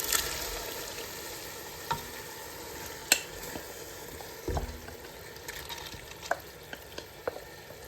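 Soaked maash daal (split urad lentils) frying in oily onion-tomato masala in a pan: a steady sizzle, with scattered clicks and knocks of a spoon stirring against the pan.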